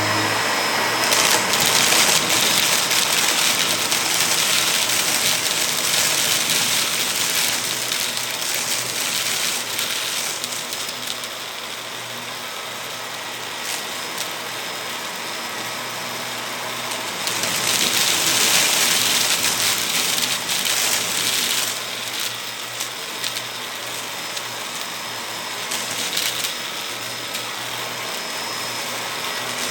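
Vacuum cleaner running steadily, a motor hum under a broad airflow hiss, the hiss growing louder twice for several seconds at a time.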